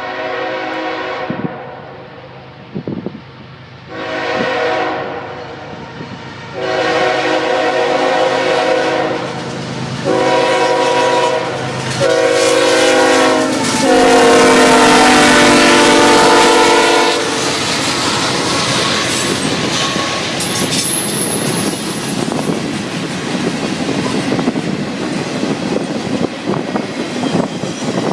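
A CSX freight locomotive's multi-chime air horn sounds six blasts of different lengths, the last and loudest lasting about three seconds. The intermodal train then runs past with a steady rumble and wheels clattering over the rail joints.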